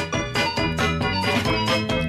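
Background music: upbeat keyboard and organ tune with a steady beat.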